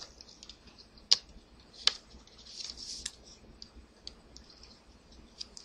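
Trading cards handled by hand: a scattering of light clicks and soft rustles, with two sharper clicks about one and two seconds in.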